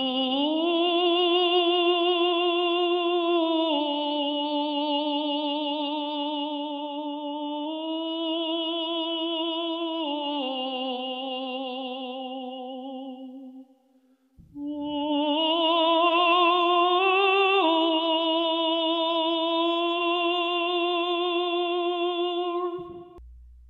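A solo voice in operatic style singing long, slow held notes with a wide vibrato, unaccompanied. It breaks off for about a second midway and stops just before the end.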